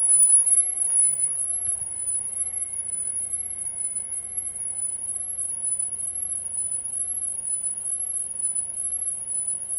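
Ultrasonic dog bark deterrent's piezo speakers, driven by a sound generator set to 3.5, emitting a steady high-pitched tone that warbles up and down about once a second.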